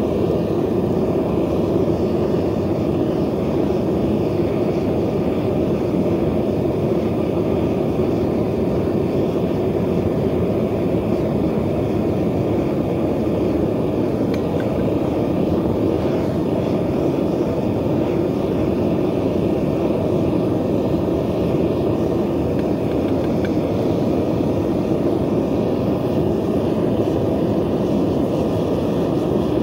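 Gas burner firing a bucket furnace that is melting scrap aluminum, running with a steady, even, low noise that does not change.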